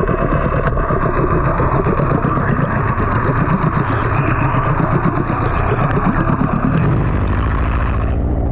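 Yamaha outboard motor running under way, heard through an underwater camera: a steady engine and propeller churn mixed with water rushing past. Near the end a brighter hiss comes in and then stops abruptly.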